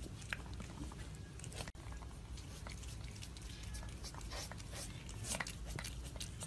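A cat's paw scratching and tapping faintly on a wooden tabletop, scattered soft clicks over a low steady room hum.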